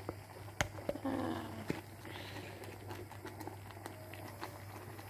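A spoon clinks a few times against the pot while honey is spooned into simmering millet porridge. About a second in, a short pitched call sounds, over a low steady hum.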